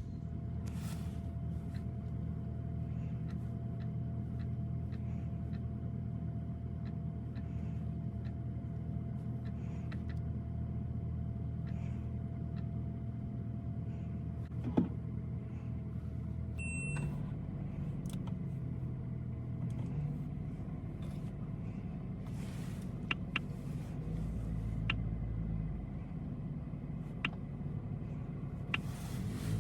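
Volkswagen Golf 8 GTI's 2.0-litre turbocharged four-cylinder petrol engine idling steadily. About 17 seconds in the engine note shifts and then runs with changing revs, with a few light clicks.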